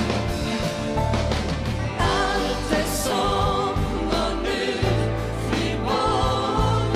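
Live pop duet: a man and a woman singing together over a band with a strong bass, the voices coming in about two seconds in.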